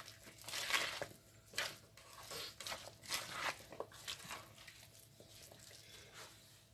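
Salad with diced avocado being mixed in a bowl: irregular soft squishing and scraping strokes, dying away over the last couple of seconds.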